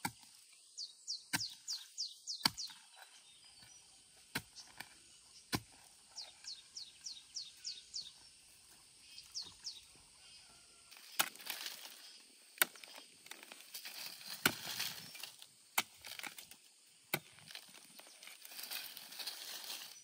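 A hand hoe chopping into dry, burnt hillside soil in scattered single strikes, with rustling of dry leaves and debris underfoot through the second half. In the first half a bird calls in quick runs of high chirps.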